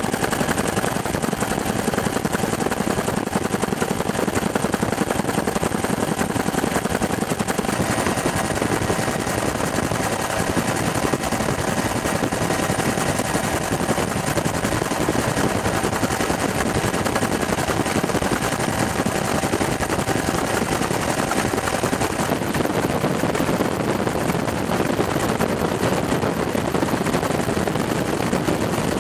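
Helicopter heard from on board: a steady, rapid rotor chop mixed with rushing air, with a faint steady whine that shifts about eight seconds in and fades out about three-quarters of the way through.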